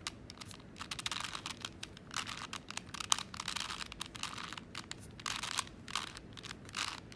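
A 4x4 Rubik's cube being turned by hand through a sequence of moves, its plastic layers clicking and scraping in quick runs of turns with short pauses between them.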